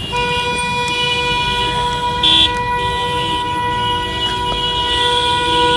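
A vehicle horn sounding continuously on one steady pitch, over a bed of road and fire noise. A short, higher beep cuts in about two seconds in.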